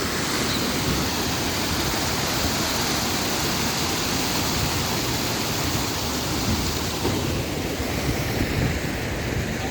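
Steady rush of water falling and splashing from a small waterfall.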